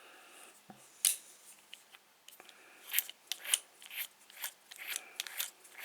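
Metal clicks from handling a combination dial padlock: one sharp click about a second in, then an irregular run of short clicks from about three seconds on.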